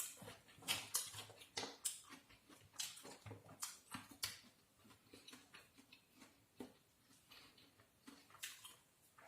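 Close-up eating sounds: irregular crunchy bites and chewing clicks, thicker in the first four seconds and sparser afterwards.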